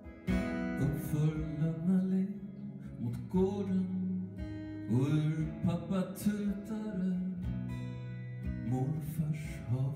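A man singing live to his own strummed acoustic guitar. The guitar comes in with a strong strum about a quarter-second in.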